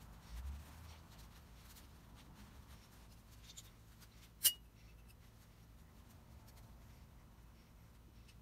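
Faint rubbing of a shop towel wiping small metal plane parts. A dull bump comes about half a second in, and one sharp metallic click with a short ring comes about four and a half seconds in.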